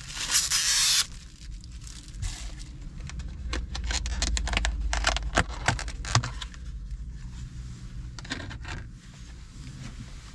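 Takeout food packaging and utensils being handled. There is a loud crinkling rustle about a second long at the start, a run of sharp clicks and scrapes in the middle, and a short rustle near the end.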